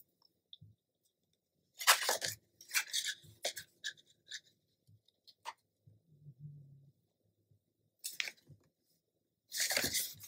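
Paper and cardstock being handled: short rustles and scrapes as a patterned paper strip is laid into a pocket and pressed flat. They come in a cluster about two seconds in and again near the end, with quiet between.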